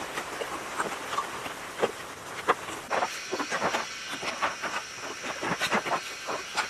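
Hands washing greasy generator parts in a plastic tub of soapy water: irregular splashing and sloshing with knocks of the parts, and water pouring off a metal part lifted out near the end. A steady high-pitched whine sits behind it, dropping out at the start and returning about three seconds in.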